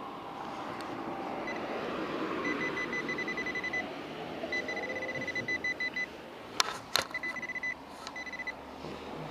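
Handheld metal-detecting pinpointer probe beeping fast and high-pitched in several bursts as it is pushed into loosened soil, signalling metal close by. Soil is scraped in the background, and a couple of sharp knocks come about two-thirds of the way through.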